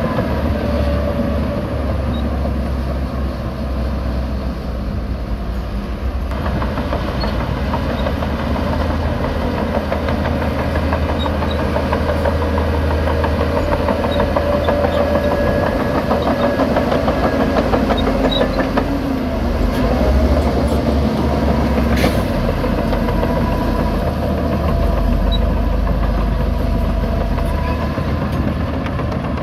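Shantui DH17 C2 crawler bulldozer's diesel engine running steadily under load, with a dense clanking rattle from its steel tracks as it pushes dirt. A single sharp click about three quarters of the way through.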